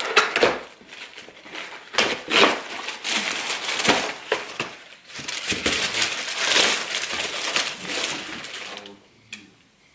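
Tissue paper rustling and crinkling as a gift box is opened and unpacked, in several bursts, dying away near the end.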